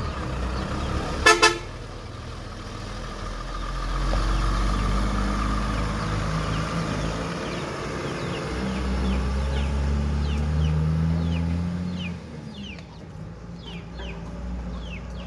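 A vehicle horn gives two short toots, then a heavy vehicle's engine runs, swelling and easing. Short falling bird chirps come in near the end.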